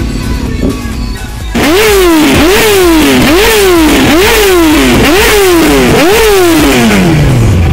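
Single-cylinder four-stroke engine of a Husaberg FE 550 supermoto motorcycle, loud, coming in about a second and a half in. It revs up sharply and falls back about six times in quick succession, then the revs wind down steadily near the end.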